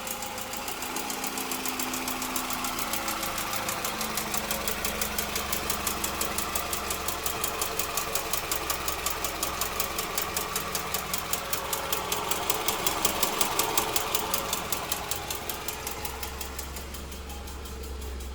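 Toyota 2AZ-FE 2.4-litre four-cylinder engine running just after start-up with a rapid, regular knock. The knock grows louder and then fades near the end. The owner puts it down to factory-defective spark plugs.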